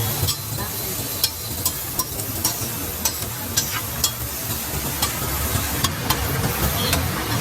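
Dosa batter and filling sizzling on a hot flat iron griddle, with a metal spatula scraping and tapping on the griddle, sharp clicks roughly every half second.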